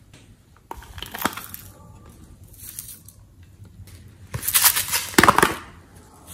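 Small plastic cup of glitter handled and tipped out over a tray of slime: a few light plastic clicks, then, from about four seconds in, a louder rustling shake of glitter lasting about a second.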